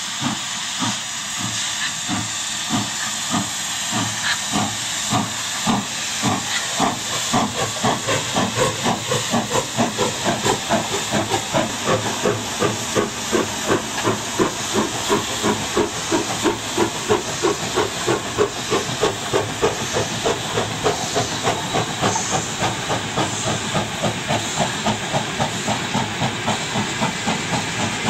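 Double-headed steam locomotives working hard as they pull a train away, their exhaust chuffs speeding up from about two a second to three or four a second, over a steady hiss of escaping steam.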